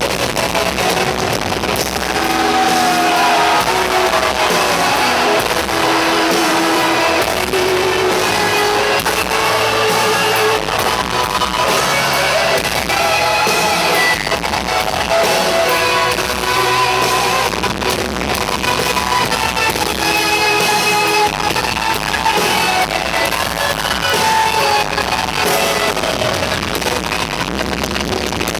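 Live rock band playing in a large arena, loud, with a guitar melody line to the fore, recorded from among the audience.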